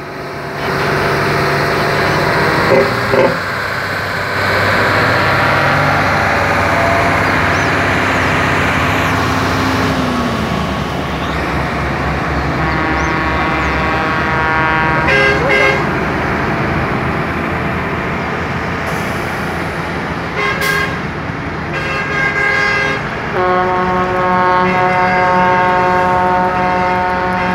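Heavy diesel trucks running steadily as they pass one after another, with short horn blasts about 3 s and 15 s in and again around 21 s. A long multi-tone horn is held through the last four seconds.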